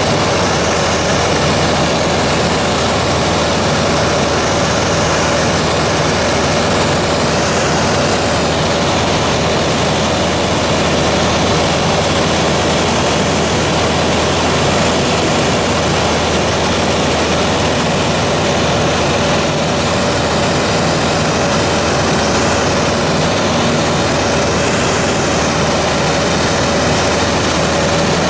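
Steady cabin noise of a light aircraft in flight: engine drone and rushing air with one constant tone over it.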